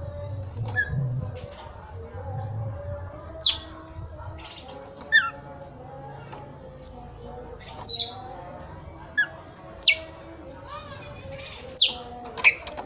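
Oriental magpie-robin (kacer) giving short, sharp whistled notes that sweep downward in pitch, about six of them at irregular gaps, with a brief jumble of notes about eight seconds in. A low murmur sits under the first few seconds, and a faint steady high hiss runs beneath.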